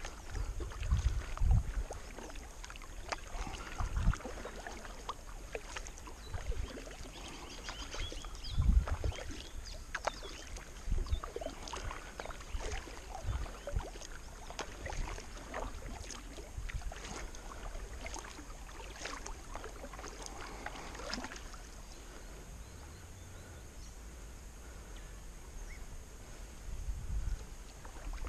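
Kayak paddle strokes on calm water: small splashes and drips from the paddle blades, with occasional low thumps.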